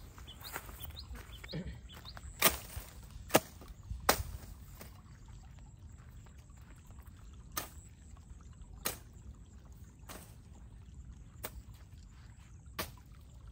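Sharp, isolated clicks or knocks at irregular intervals, the loudest a few seconds in, over a faint steady background hiss.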